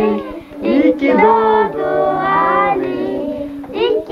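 Children and women singing a birthday song together, several voices holding long notes.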